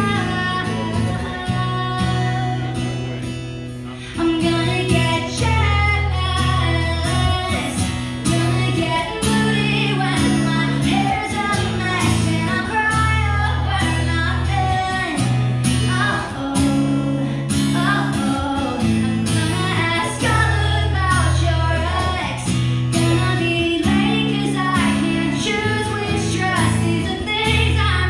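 A female singer singing a song live into a microphone while strumming an acoustic guitar, recorded from the audience. The music dips briefly and comes back louder about four seconds in.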